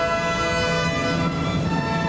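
Orchestral music with bowed strings, violins and cellos among them, playing long held notes at a steady level.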